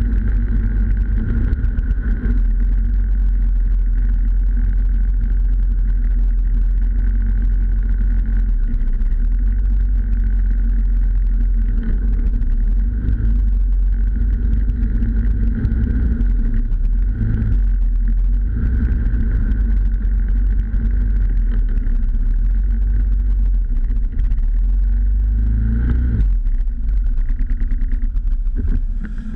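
Snowmobile engine running steadily under way, with track and wind noise on the mounted camera. Its note drops about three-quarters of the way through as the sled slows to join a line of other snowmobiles.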